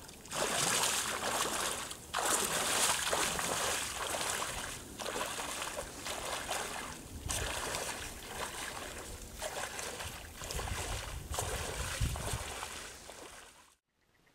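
A person in waders wading through shallow river water, the water sloshing and splashing with each stride, roughly a stride every second or so. The sound cuts off abruptly near the end.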